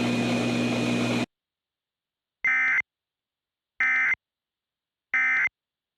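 A steady noisy drone with a held high whine cuts off abruptly about a second in. Three short, identical warbling data bursts of EAS digital header tones follow, about a second and a half apart: the "NNNN" End of Message code that closes an Emergency Alert System broadcast.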